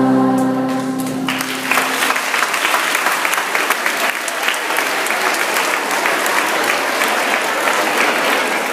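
The last held chord of a children's song dies away, and about a second in a large crowd of schoolchildren breaks into applause, many hands clapping together, which keeps up steadily.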